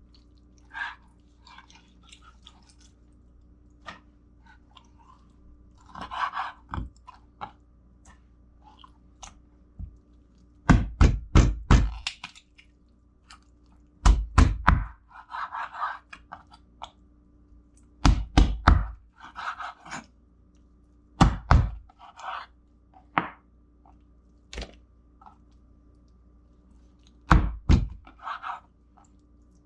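Knife chopping through raw chicken on a cutting board: several bursts of four or five quick hard chops, with quieter scraping and handling sounds between them.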